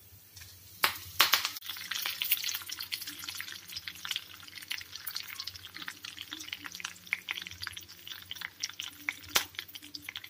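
Fresh curry leaves hitting hot oil in a tempering pan, spluttering and crackling sharply about a second in, then popping and sizzling steadily as they fry.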